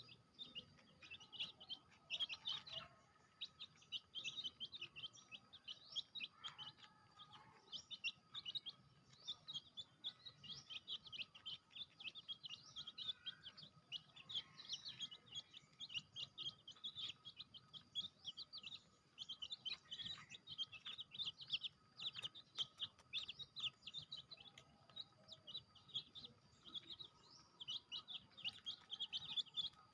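Chicks peeping continuously: many short, high-pitched peeps overlapping in a rapid stream.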